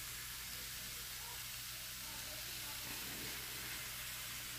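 Trout and red snapper fillets frying in a nonstick skillet: a faint, steady sizzle.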